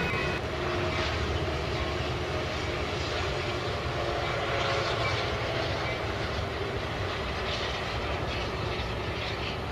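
Passing trains running on the rails, a steady rumble and wheel noise: the tail of a Union Pacific double-stack container train moving away and an Amtrak Pacific Surfliner crossing the overpass. A chord of high steady tones cuts off about half a second in.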